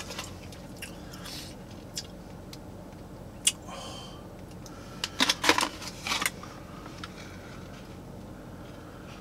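Handling of a cardboard burger box and a ranch sauce cup squeezed onto a cheeseburger: a sharp click about three and a half seconds in, then a cluster of crackles and squishes about five to six seconds in.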